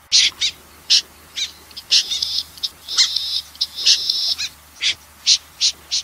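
Snipe calling again and again: short, sharp, high calls coming two or three a second, with a few fast chattering runs in the middle. It is a recorded flock-calling cry of the kind used to lure snipe.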